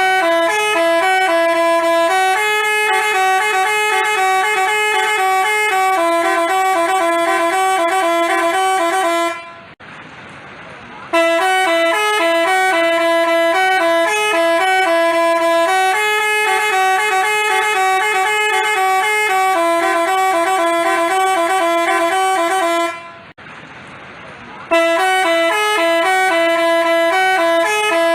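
Telolet basuri multi-tone bus horn playing a repeating tune in short stepped notes. It breaks off twice for a second or two, about a third of the way in and again past the three-quarter mark.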